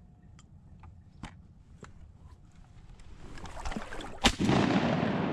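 Two shotgun blasts about a second apart, fired at an incoming hen mallard, each sharp crack trailing off into echo. A rush of noise builds over the second or so before the first shot.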